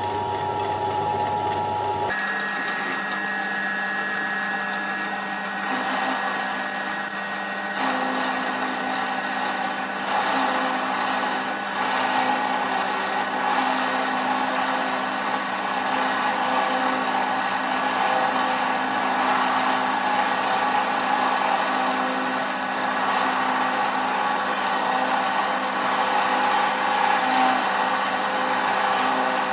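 Milling machine running, its cutter taking a recess along the underside of a slot in a casting as the rotary table is hand-cranked: a steady motor whine with cutting noise, changing in pitch about two seconds in.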